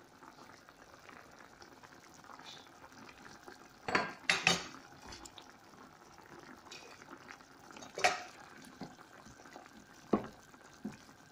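Chicken curry in coconut milk simmering and bubbling in a pot, with a few sharp metal clinks of a utensil against the pot about four, eight and ten seconds in.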